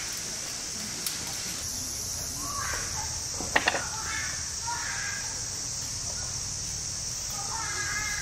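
Crows cawing several times in short calls, over a steady high hiss, with two sharp clicks about three and a half seconds in.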